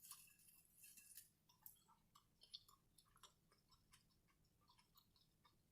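Faint chewing of a sub sandwich: small soft clicks and ticks of mouth and food, scattered irregularly, a little busier in the first second or so.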